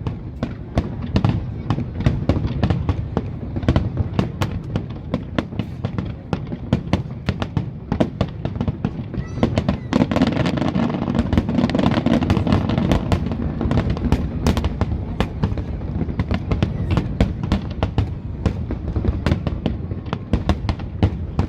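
Aerial fireworks display: a dense, continuous run of booms and sharp cracks, with a thicker stretch of rapid crackling about halfway through.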